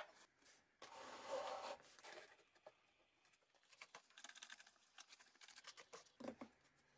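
Faint handling sounds of a router table fence being set by gloved hands: a short soft scrape about a second in, then light scattered taps and clicks.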